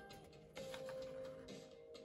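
Soft background music with long held notes, over faint rustling and clicking of photo prints being flipped through by hand.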